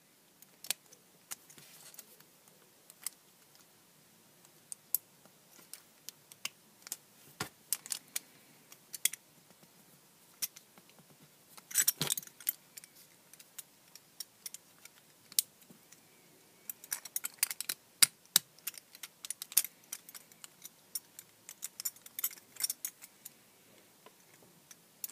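Beyblade spinning-top parts, a metal fusion wheel and plastic pieces, clicking and clinking as they are handled and fitted together: scattered sharp clicks, a brief clatter about twelve seconds in, and a denser run of clicks near the end.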